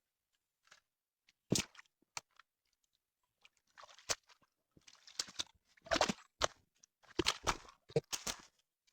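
Creek gravel crunching and clattering in short, irregular bursts with a few sharp clicks, sparse at first and busier in the second half.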